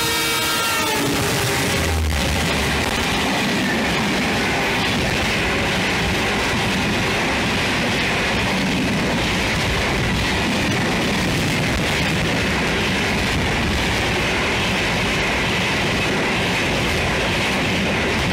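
Swarna Jayanti Rajdhani Express passenger train passing close at speed. Its horn fades out about a second in, then comes the steady, loud clatter of the coaches and wheels running over the rails.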